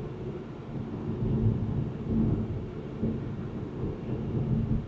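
Low, uneven road and tyre noise heard inside a Tesla's cabin while it drives along, swelling and easing several times.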